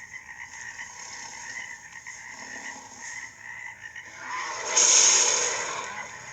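Made-up Ceratosaurus call for a dinosaur sound effect: a steady, rattling, croak-like trill, with a louder, breathy roar swelling about four seconds in and then fading.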